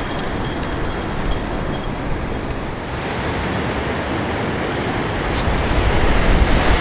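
Surf breaking on a beach as a steady roar, with wind buffeting the microphone, the low wind rumble growing stronger near the end.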